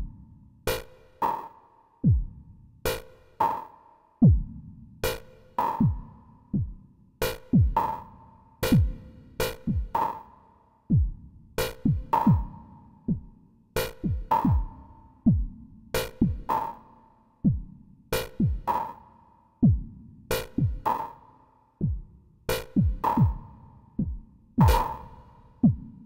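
Eurorack modular synthesizer playing a looping electronic drum pattern. Synthesized kick drums drop quickly in pitch, mixed with sharp percussive hits that ring briefly at a fixed pitch.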